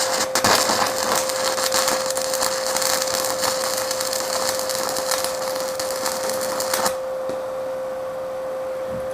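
Inverter arc welder crackling and sizzling for about seven seconds, then the arc stops abruptly; a steady hum continues throughout.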